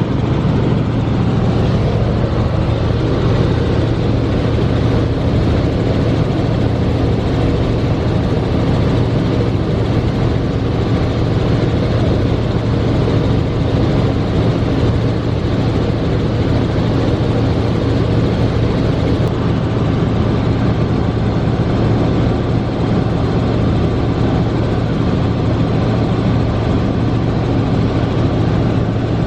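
Helicopter running in flight, heard from inside the cabin: a loud, steady mix of engine and rotor noise with a low hum underneath.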